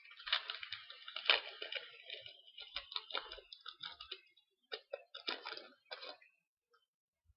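Foil trading-card pack crinkling and cards being handled, a busy run of rustling and crackly clicks that stops about six seconds in.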